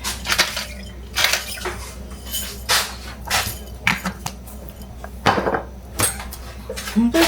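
Metal kitchen utensils and pots clinking and scraping in a series of irregular strokes, as food is stirred and handled in a pot.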